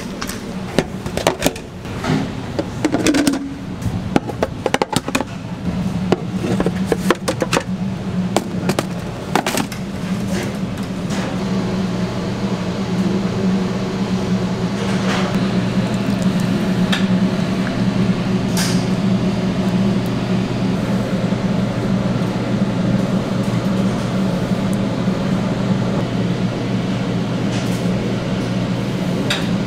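Utensil clicking and scraping in a bowl as chopped tomatoes are stirred, in quick irregular clicks for roughly the first ten seconds. Then a steady low mechanical hum of kitchen equipment takes over, with a few faint knocks.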